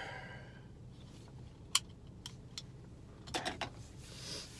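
A few faint sharp clicks over a steady low hum in a car cabin: one about two seconds in, two more soon after, and a quick cluster past three seconds, then a short hiss near the end.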